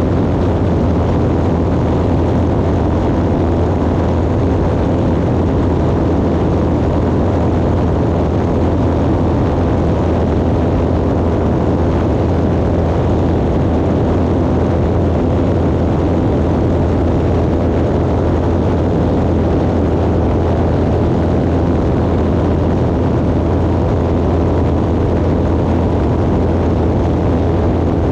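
Propeller aircraft engine running steadily at high power during a takeoff, a loud unchanging drone with a strong low hum.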